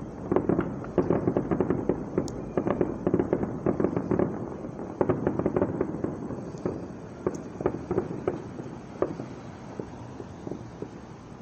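Fireworks going off in a rapid barrage of bangs and crackles, dense at first, then thinning out and fading over the last few seconds as the show ends.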